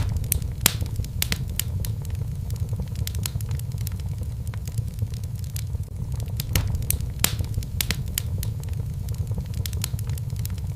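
Wood fire burning in a fireplace, crackling: irregular sharp pops over a steady low rumble of the flames.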